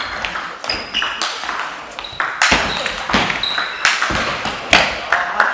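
Table tennis rally: the ball knocked back and forth by the bats and bouncing on the table, a run of sharp clicks with a short ringing ping to some strokes, echoing in a large sports hall.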